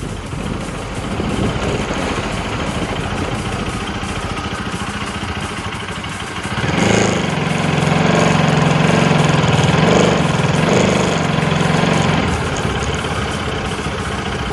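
A vehicle engine running steadily, getting louder about seven seconds in for around five seconds, then easing back.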